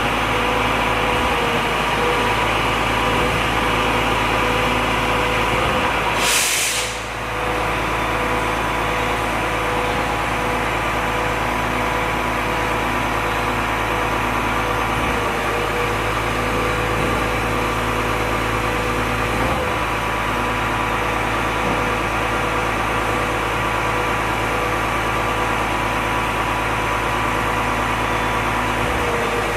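Volvo FM 370 truck's diesel engine idling steadily. About six seconds in there is a short hiss of air.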